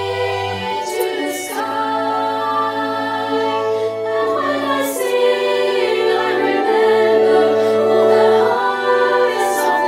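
Slow choral music: a choir singing long held chords that change every second or two.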